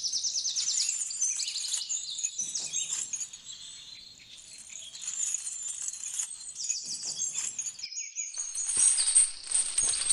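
Small birds chirping and trilling in quick high runs of notes. A rougher rustling noise comes in near the end.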